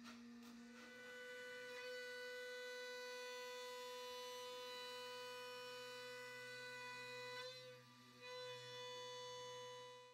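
Roland MDX-50 desktop CNC mill's spindle whining steadily at one fixed pitch as the cutter mills Corian solid surface material, with a brief dip in loudness about three-quarters of the way through.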